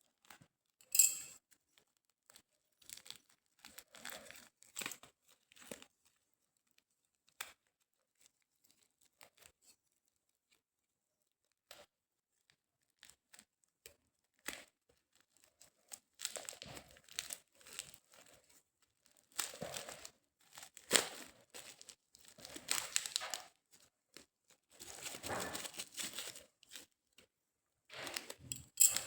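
Small package being torn open by hand: intermittent tearing and crinkling of the wrapping, sparse and faint at first with a sharp crackle about a second in, then busier and louder in the second half.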